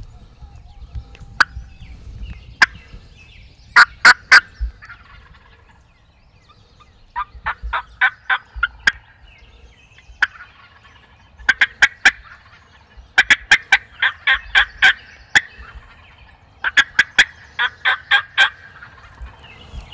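Wild turkey yelps and cutting: loud runs of sharp, clipped notes, a few to about a dozen at a time, repeated about six times with short pauses between.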